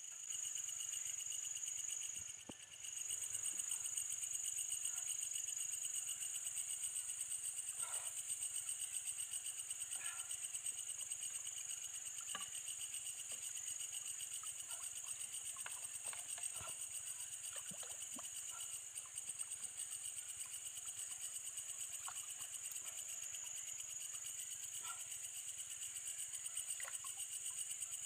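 Chorus of night insects, a steady high trilling at two pitches, with faint scattered clicks and rustles from a fishing net being handled.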